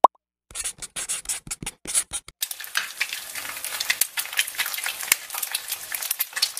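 Logo-sting sound effect: a short pop at the start, then scattered clicks from about half a second in, turning into a dense, continuous sizzling crackle a couple of seconds in.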